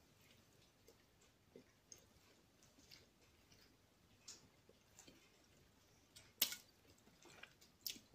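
Close-up chewing of an apple fritter: faint wet mouth clicks, with two sharper, louder clicks in the last two seconds.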